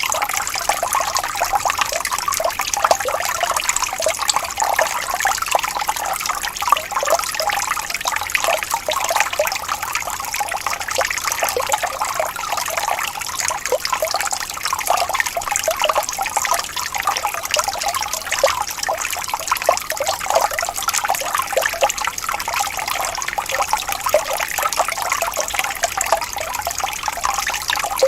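Running water falling and splashing steadily, a continuous bright trickling with little low rumble.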